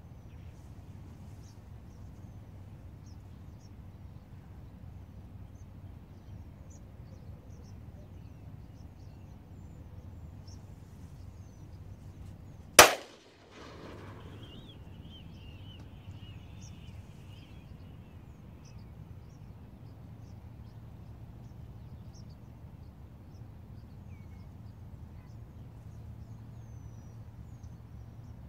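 A single shotgun shot, sharp and loud, about halfway through, over a faint steady background with faint high chirps.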